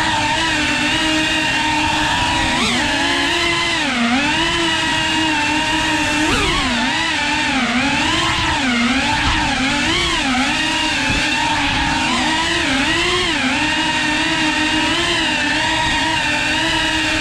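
Small FPV quadcopter's brushless motors whining, the pitch rising and falling constantly with throttle changes.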